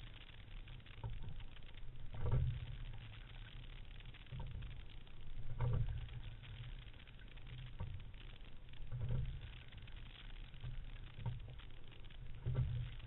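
Fluidesign single scull being rowed: a surge of low noise with a knock at each stroke, about every three and a half seconds, four times, with lighter clicks between, over a steady low rumble of water and hull.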